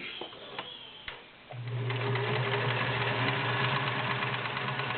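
A few light clicks, then about a second and a half in a Kenmore model 1720 all-metal sewing machine starts and runs steadily, its motor humming under rapid needle ticking as it stitches through 14 layers of cotton.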